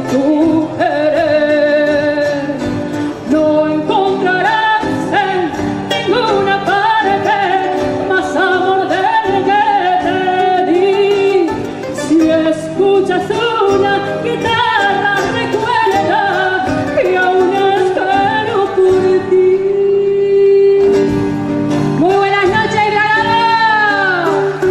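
Argentine folk song in performance: a sliding, ornamented melody line over a steady instrumental accompaniment, with one long held note about twenty seconds in.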